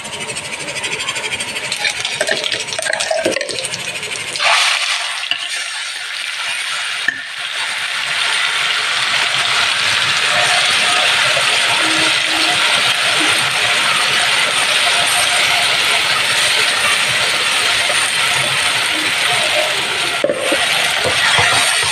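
A small metal spoon clinks against steel spice tins, then from about four seconds in food sizzles steadily in hot oil in a stainless steel pan, louder from about eight seconds on, with the occasional scrape of metal on the pan.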